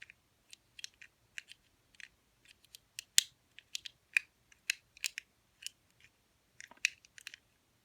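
Light, irregular clicks and ticks of a pick wire working the levers of a clear plastic four-lever lock held under tension, a few clicks a second.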